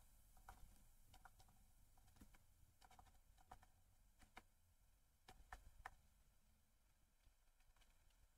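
Near silence with faint, irregular clicks of a pen stylus tapping on a tablet while handwriting, a small cluster of them a little past the middle.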